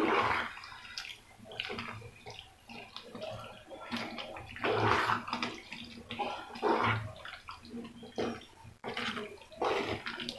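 Wooden spatula stirring macaroni through a thick, creamy white sauce in a pan, in irregular strokes a second or two apart, over a faint steady hum.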